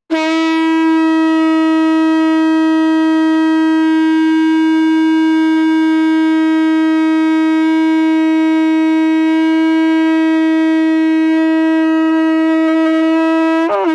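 Conch shell (sangu) blown in one long, steady note held for about fourteen seconds, wavering briefly as it cuts off.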